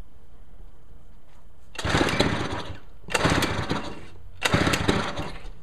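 Nissan 3.5 hp two-stroke outboard being pull-started three times in quick succession, each pull turning the engine over in a rapid chuffing burst of about a second without it catching. The owner puts the failure down to a clogged carburetor starving the engine of fuel.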